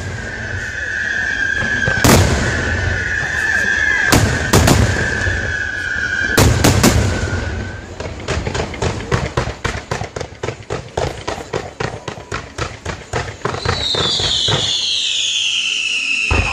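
Aerial fireworks display: a steady high whistle runs under three heavy booms from bursting shells about two seconds apart. After that comes a rapid run of sharp cracks, several a second, and near the end a whistle that falls in pitch.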